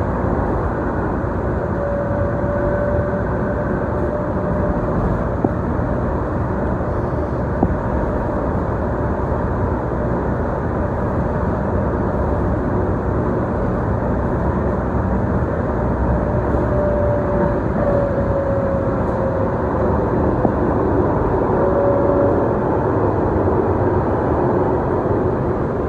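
Steady running noise of a Tide light-rail car at speed, heard from inside the car: wheels on rail and the car's running gear. A faint whining tone comes and goes a few times.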